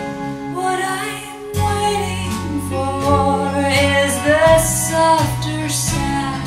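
A woman singing a slow song over instrumental backing, played through Monitor Audio Silver floorstanding hi-fi loudspeakers and heard in the listening room.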